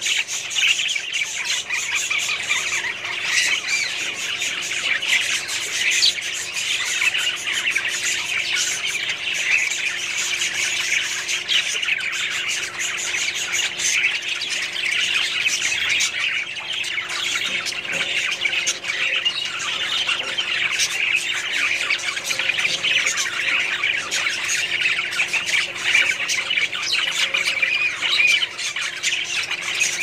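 A flock of budgerigars chattering continuously, many short overlapping chirps and warbles in a dense, steady mass with no pauses.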